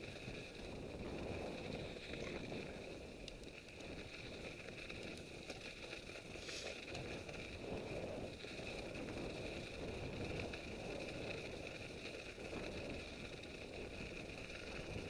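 Mountain bike rolling along a snow-covered track: a steady rumbling noise of the tyres on snow and the bike shaking over the ruts, with a few faint clicks.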